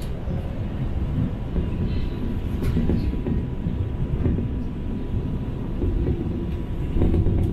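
Interior running noise of a Chongqing Line 3 straddle-beam monorail car in motion: a steady low rumble of the rubber-tyred train travelling along its elevated beam.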